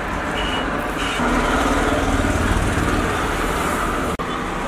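Steady mechanical drone of street ambience with a low rumble. It cuts out for an instant near the end.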